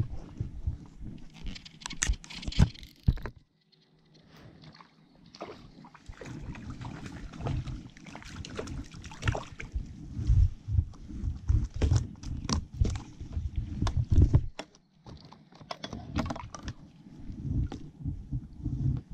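Water sloshing against the hull of a small inflatable fishing craft, with irregular knocks, bumps and scrapes of a fly rod and line being handled while a small fish is brought in alongside. A brief quiet spell falls about three and a half seconds in.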